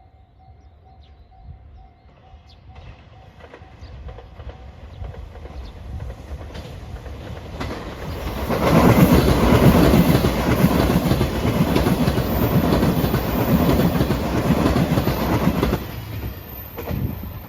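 A train approaching and passing at speed over a level crossing: its rumble builds for about eight seconds, then a loud run of wheel clatter over the rail joints lasts about seven seconds before falling away near the end. A faint repeating ringing tone is heard in the first two seconds.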